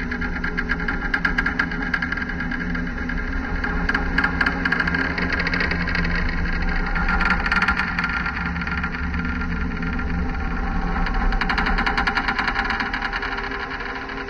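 Electronic music made from granulated recordings and city field recordings: a dense, rapidly fluttering texture over a steady low drone.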